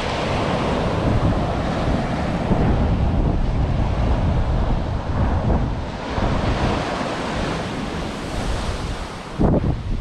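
Ocean surf breaking and washing up the sand, with wind buffeting the microphone. One louder gust comes near the end.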